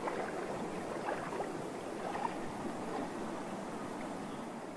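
Floodwater rushing and washing steadily.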